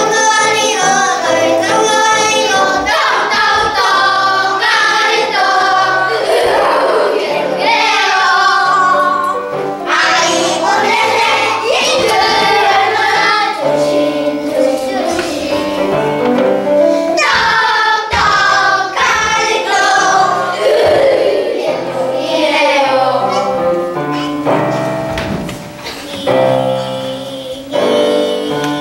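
A group of young children singing a song together, in unison, over instrumental accompaniment.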